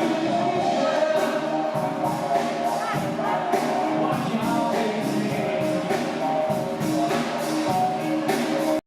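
Military band music playing, with held notes and sharp percussive strokes; it cuts off suddenly near the end.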